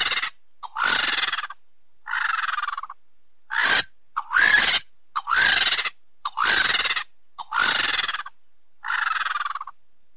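A vulture giving a series of about nine harsh, raspy hissing calls, each under a second long, roughly one a second.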